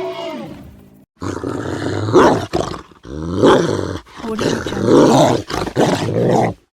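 Cartoon creature sound effect: a series of about four growling roars, each roughly a second long with short breaks between them.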